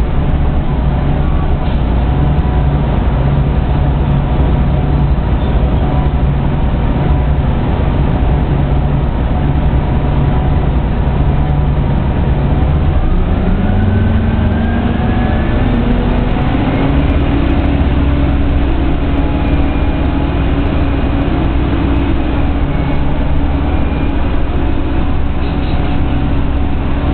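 Orion V CNG transit bus's engine and drivetrain heard from inside the passenger cabin, running steadily while the bus drives. About halfway through, the pitch rises over a few seconds as the bus picks up speed, then holds at the higher level.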